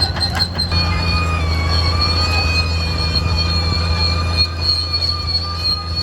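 Caterpillar D6R XL crawler bulldozer's diesel engine running steadily under a high, slightly wavering squeal from the steel-track undercarriage, with a few sharp clicks in the first second.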